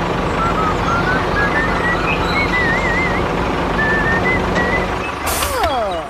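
Small motor of a homemade mini tractor running steadily, with a thin, wavering high tone over it. Near the end the running drops away under a short hiss and a falling swoosh.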